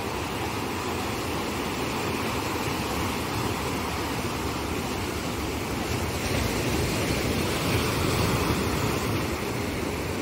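Ocean surf breaking and washing up the shore in a steady rush, swelling louder a little past halfway through.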